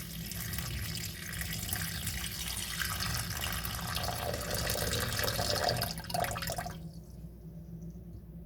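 Water running from a tap, growing louder, then shut off abruptly about seven seconds in.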